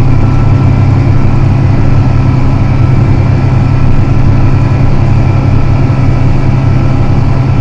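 John Deere 7280R tractor engine running steadily under load while pulling a plow.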